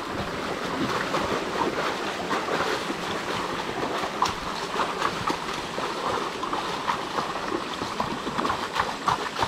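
Shallow stream water splashing and sloshing as people wade through it and sweep a hand net, over the steady rush of flowing water.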